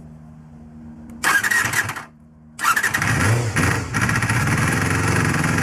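Honda JADE's MC14E 250 cc inline-four engine starting. About a second in it fires briefly and dies, then it catches again and keeps running steadily.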